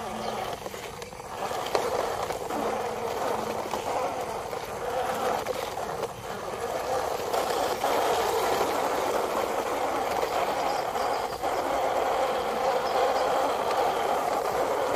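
Plastic toy dump trucks rolling over dirt and grass, a steady rolling noise that gets louder about halfway through.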